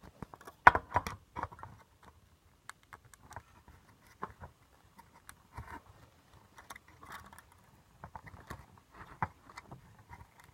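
Irregular small clicks and taps of hands working a ribbon cable into the plastic locking connector on a circuit board, with the loudest run of clicks about a second in.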